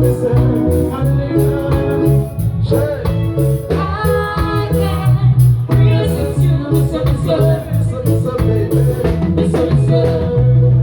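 Live reggae performance: a singer over a band, with a bass line stepping between notes and regular drum strokes.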